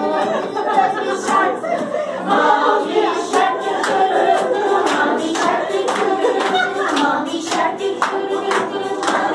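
A group of people singing together and clapping along, with sharp hand claps over the voices.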